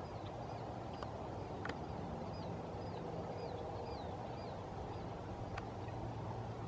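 A bird giving short, high chirps, a few a second through the first four seconds or so, over a steady low rumble, with a few sharp ticks.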